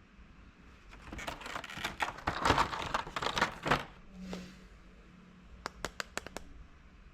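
Small plastic toys and packaging being handled: crinkling and clicking for about three seconds, then a quick run of about six light clicks.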